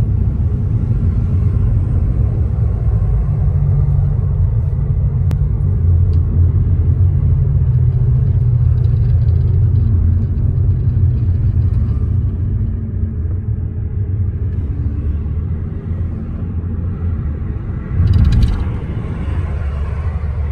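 Low, steady road rumble of a car's tyres and engine, heard from inside the cabin while driving. There is a brief louder rush of noise near the end.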